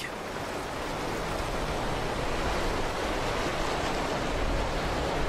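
Swollen river rushing through rapids: a steady, even wash of water noise.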